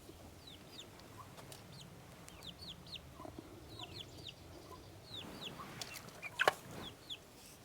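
Birds chirping, with many short chirps that fall in pitch, some fainter low clucking notes, and a single sharp knock about six and a half seconds in.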